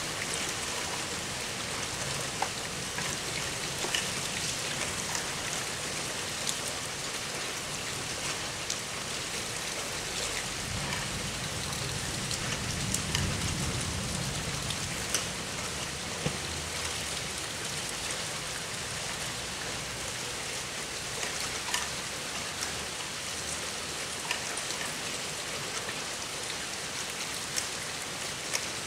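Steady downpour of rain with scattered sharp ticks of individual drops striking a surface. A low rumble swells and fades about ten to fifteen seconds in.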